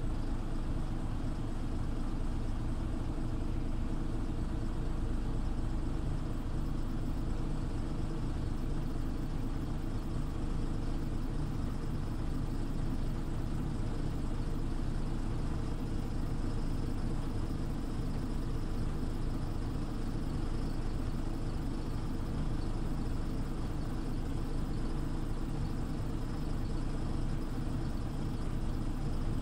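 Scania OmniLink CL94UB city bus's diesel engine running steadily at an even pitch, with no rises or falls in revs.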